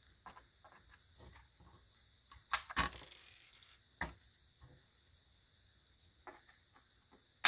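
Flush cutters snipping through resistor leads on a refrigerator control board: sharp clicks, two close together about two and a half seconds in and another about four seconds in, among fainter small taps.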